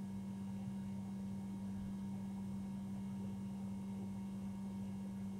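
Steady electrical hum: one constant low tone with a fainter higher one, over quiet room noise.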